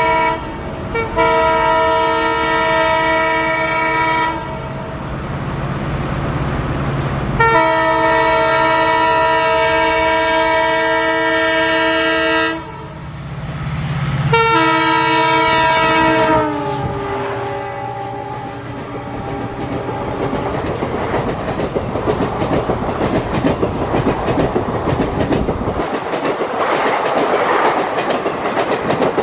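EMD diesel locomotive horn: a blast that cuts off just after the start, then three long blasts, the last one dropping in pitch as the locomotive passes. The train then runs by with a rapid clickety-clack of wheels over rail joints, growing louder toward the end.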